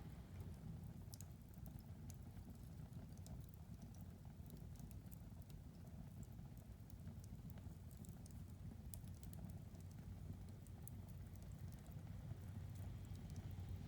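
Wood fire crackling in a fireplace: faint, irregular sharp crackles and pops over a low steady rumble.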